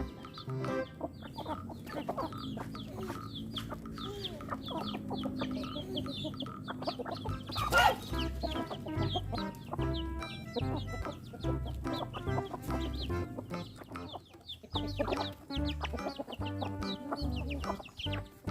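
Chickens clucking over background music with a steady low bass line, with one louder, sharp call about eight seconds in.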